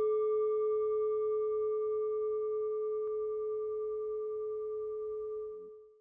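A single bell tone ringing on one steady pitch with fainter higher overtones, slowly dying away and fading out shortly before the end.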